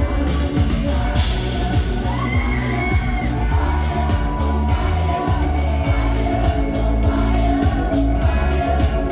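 A live band playing amplified pop music, with a steady drum beat, heavy bass and a voice singing held, gliding notes. A crowd shouts and whoops faintly underneath.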